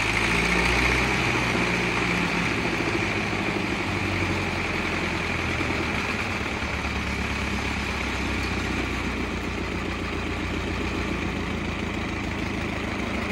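1909 Ford Model T's four-cylinder side-valve engine running steadily at idle, sounding nice and even.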